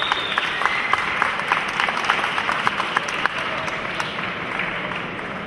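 Audience applauding, with scattered individual claps that thin out and grow quieter toward the end.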